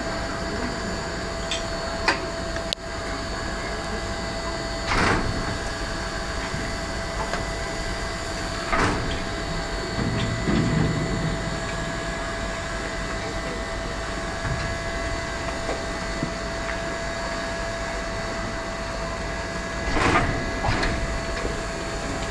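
Standing steam locomotive BR 03 1010 under steam, a steady hum and hiss with a few short hissing swells and some sharp metallic knocks.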